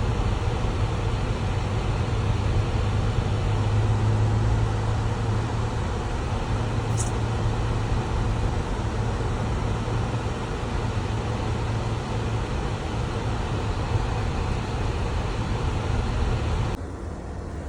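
Steady engine and road drone of a moving car heard from inside the cabin, with a strong low hum. A brief high chirp sounds about seven seconds in, and near the end the drone cuts off suddenly, leaving a quieter hiss.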